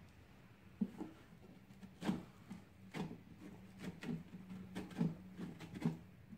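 Flesh being scraped and scooped out from inside a whole pumpkin, hollowing it: a series of short scraping strokes, roughly one a second.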